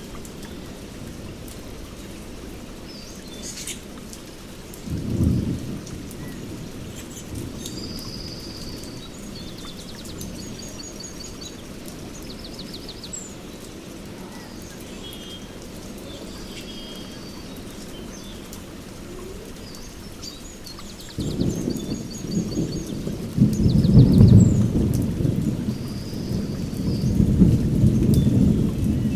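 Rainforest thunderstorm ambience: steady rain with birds calling and trilling throughout. A short rumble of thunder comes about five seconds in, then a long, louder roll of thunder begins about two-thirds of the way through and peaks soon after.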